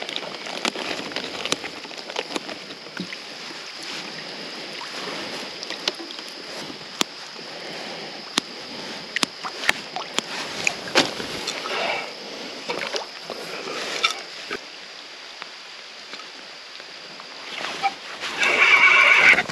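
Small clicks and taps of hands working bait, scissors and tackle in a small boat, over a steady high drone and faint water sounds. Near the end a brief louder whirring rush as the rod is cast.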